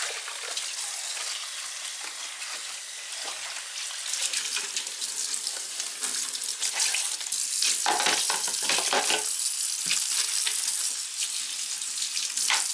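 Makeup sponges being washed in water with baby shampoo: a steady hiss of water, louder from about four seconds in, with brief irregular splashes.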